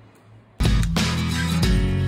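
Background music cuts in suddenly about half a second in, after a moment of faint room sound, and carries on loud and steady.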